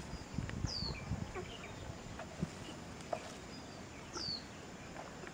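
A bird gives two short high whistles sliding downward, about a second in and again about four seconds in, over forest background with scattered soft clicks and rustles.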